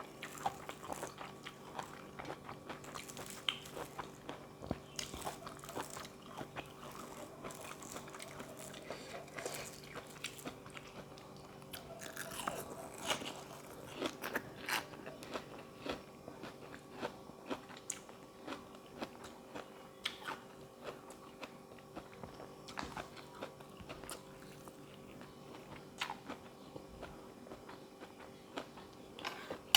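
A person chewing and crunching mouthfuls of spicy seafood papaya salad with crisp vegetables, in irregular close-up crunches and small clicks.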